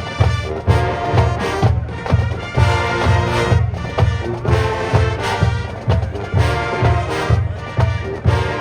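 High school marching band playing its competition field show: full brass over a steady, evenly pulsing low beat from the drums and low brass.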